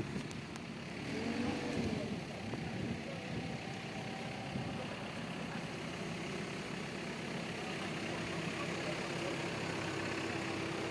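Diesel engine of a heavy earth-moving machine running steadily, with a steady hum.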